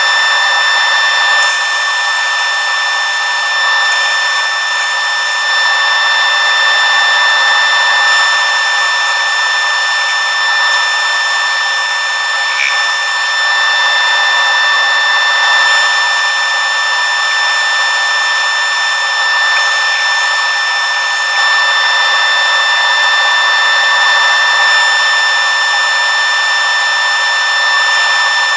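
Lathe spinning a large sanding disc with a steady whine, while a white oak block is pressed flat against the abrasive; the high sanding hiss comes and goes every few seconds as the block is pressed on and lifted off.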